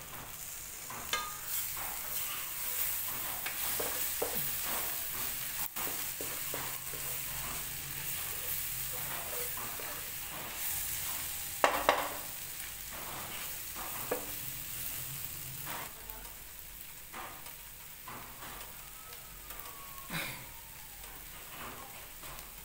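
Bitter gourd, tomato, onion and egg sizzling in a frying pan as they are stirred, with scattered scrapes and knocks against the pan, the loudest about twelve seconds in.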